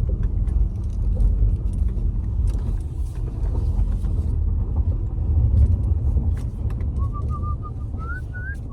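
A car heard from inside the cabin while driving: a deep, steady rumble of the road and engine. Near the end, a short run of chirping notes climbs in pitch.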